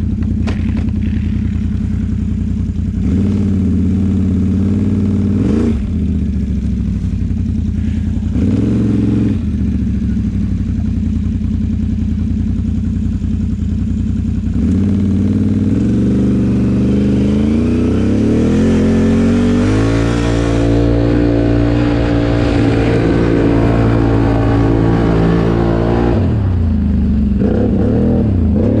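Can-Am Outlander XMR 850 ATV's V-twin engine running under throttle close by. Its pitch rises and falls a few times, then climbs steadily from about halfway, holds high for several seconds and drops back near the end.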